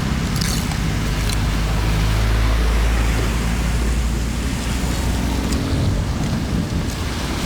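Floodwater rushing into a cleared street drain, a steady wash of water with a deep rumble underneath that eases off about five and a half seconds in.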